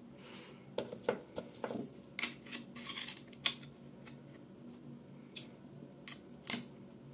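Scattered small metal clicks and taps at uneven intervals, the loudest about three and a half seconds in: the steel blade of a WMARK hair clipper being worked by hand and seated onto the clipper head.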